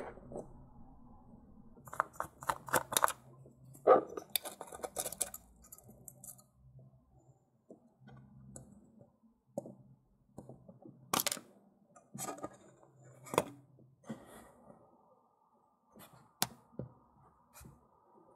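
Handling noise as a small device is taken apart: hard plastic housing parts and circuit boards clicking and knocking together. Quick clusters of clicks come about two to five seconds in, then single sharp clicks later, over a faint low hum.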